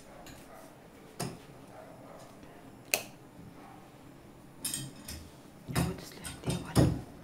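Scattered clicks, knocks and thuds of a Luvlap baby bed rail guard's frame being handled and fitted against a bed, with a sharp click about three seconds in and heavier thumps near the end.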